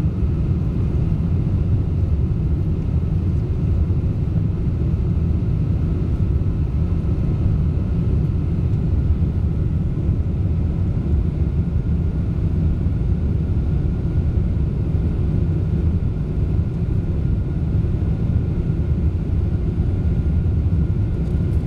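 Boeing 747-400 cabin noise during the climb after takeoff: a steady low rumble of the four turbofan engines and the airflow over the fuselage, heard from a window seat over the wing, with a faint steady whine above it.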